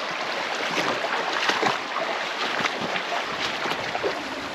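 Steady rushing of a stream, an even hiss of running water.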